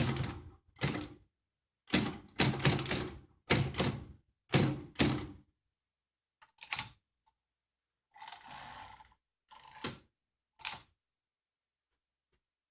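1946 Remington Noiseless Model Seven typewriter being typed on: rapid runs of muted keystrokes in four bursts over the first five seconds, then a few single mechanical clacks and a short rasping sound lasting about a second, some eight seconds in.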